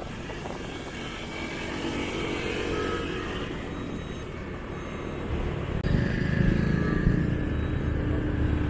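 Motorcycle running on the road with engine and road noise, getting louder about two thirds of the way in.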